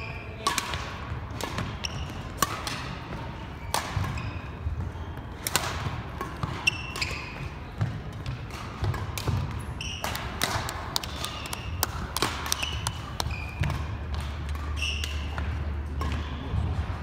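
Badminton rally: rackets repeatedly striking the shuttlecock in sharp cracks, with sneakers squeaking and feet thudding on a wooden gym floor, several short squeaks through the rally.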